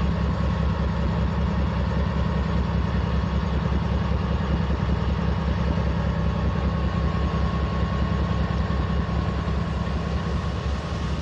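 Norfolk Southern diesel-electric locomotive idling steadily: a low, even engine rumble with a faint steady whine above it.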